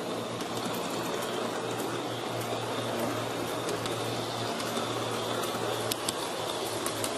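G-scale model locomotive running steadily along its track, with an even motor and gear hum and a few light clicks, heard from on board the moving train.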